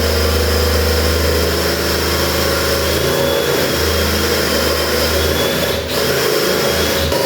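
Power drill running steadily under load, boring a 7/8-inch hole for the lock's latch into a plywood door, with a brief dip in the motor about six seconds in.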